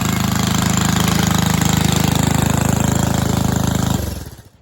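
The single-cylinder 2.5 hp Briggs and Stratton engine of a 1961 Cooper Klipper reel mower running steadily and loudly, then stopping about four seconds in and dying away within half a second.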